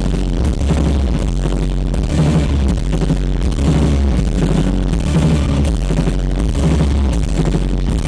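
Rock band playing live with drums and a heavy, booming bass, recorded from the crowd at a concert.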